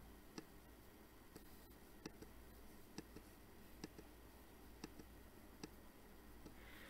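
Faint computer mouse clicks: several single sharp clicks at irregular intervals, roughly a second apart, over near-silent room tone.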